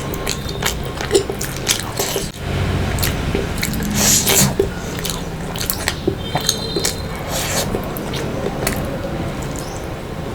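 Close-miked eating of fish curry and rice: wet chewing, squishing and lip smacks, with irregular sharp mouth clicks and a louder stretch about four seconds in.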